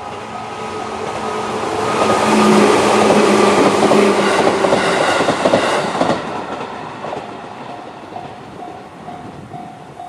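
JR 211 series electric train passing over a level crossing, with wheel clatter building to its loudest for a few seconds and then fading away. The crossing's electronic warning bell (JR standard tone) repeats a steady beep about twice a second, buried under the train and clear again near the end.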